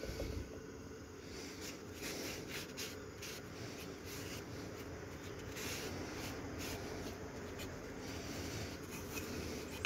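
Cloth rag rubbing wood stain onto a small wooden box, a run of short, uneven wiping strokes.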